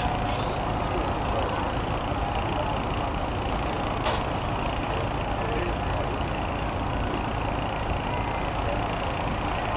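Heavy vehicle engines running steadily, with a single sharp knock about four seconds in.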